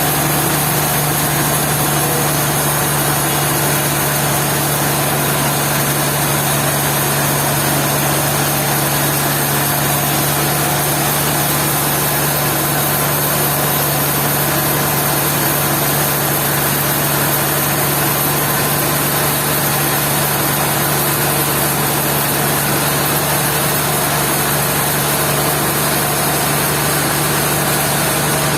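Sawmill machinery running at a steady, unchanging drone with a strong low hum and a dense high hiss.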